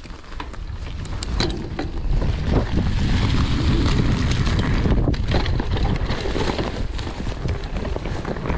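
Wind buffeting the microphone on a mountain bike under way, building over the first few seconds as speed picks up, with scattered sharp clicks and knocks from the bike and tyres rattling over the trail.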